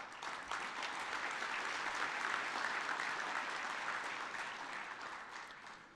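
Audience applauding in a large hall, a dense patter of clapping that starts at once, holds steady, and dies away over the last couple of seconds.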